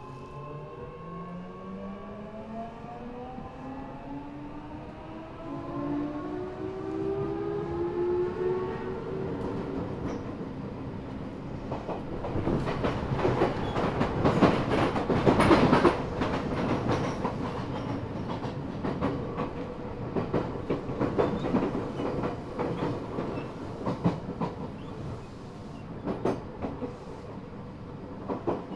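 An Eidan 6000-series subway car's high-pitched Mitsubishi three-level VVVF inverter, taken from a 7000-series train, whining in several rising tones as the train pulls away and accelerates. The sound is picked up at floor level. From about halfway in, the whine gives way to running noise and the wheels clatter over the track, loudest around the middle.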